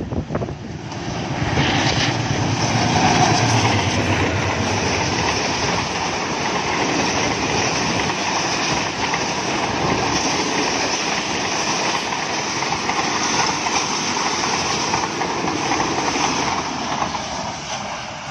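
Express passenger train passing at speed behind a diesel locomotive: a loud, steady rush of coach wheels running on the rails, easing near the end.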